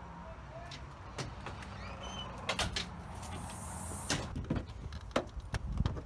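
Several sharp clicks and knocks of doors being handled, starting about two and a half seconds in: a glass storm door being opened and then a car door being opened.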